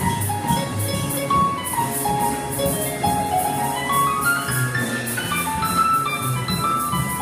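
A jazz big band playing live, with saxophones, trombones and trumpets over keyboard, guitar, bass and drums. A cymbal keeps a steady beat, and a line of notes climbs in pitch in the middle.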